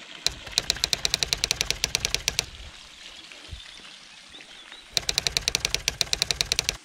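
Two bouts of rapid, even sharp taps, about ten a second, each lasting about two seconds. A quieter stretch lies between them.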